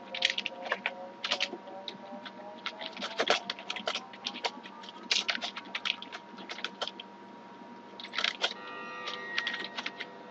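Typing on a computer keyboard: quick runs of keystroke clicks in uneven bursts, with a short pause about seven seconds in, over a faint steady hum.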